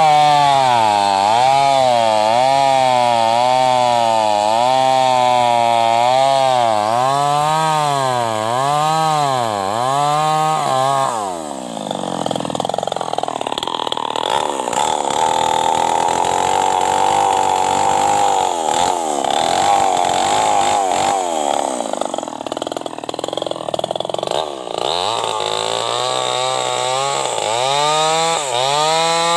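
New West 588 chainsaw with an open, muffler-less exhaust, revved up and down about once a second, then pulled down to a lower, rougher note for about a quarter of a minute as it cuts under load into hardwood, and revving up and down again near the end.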